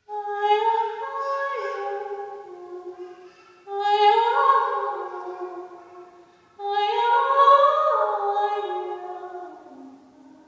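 A woman singing solo and unaccompanied, in three long phrases that each start strongly and fade away, the last sinking lower as it ends.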